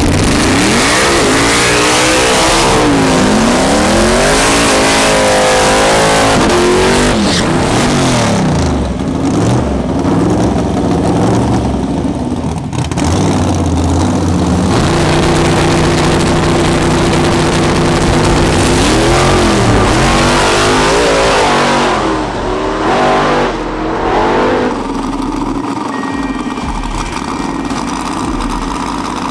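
Drag-racing cars' engines, the turbo Chevy Impala and the nitrous Fox-body Mustang, revving hard with the pitch rising and falling several times. Near the middle the engine note holds steady for a few seconds, then it revs again and dies down to a quieter run near the end.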